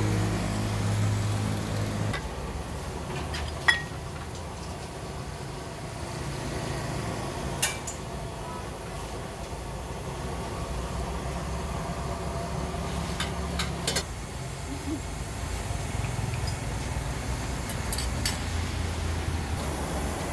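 Steady low rumble of engines and road traffic, with an engine hum that cuts off about two seconds in. A few sharp clinks of metal kitchen utensils and bowls sound over it.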